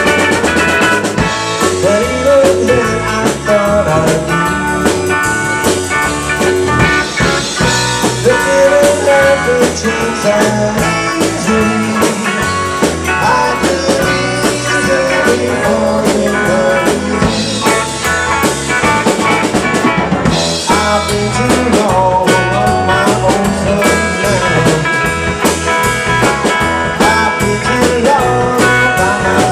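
Live band playing on drum kit, electric bass guitar and electric guitars, loud and steady.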